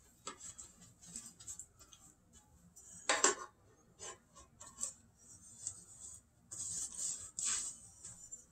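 A pastry brush scraping and swishing against a baking pan in short strokes as butter is brushed on. There is a sharper clatter about three seconds in, and a longer stretch of brushing near the end.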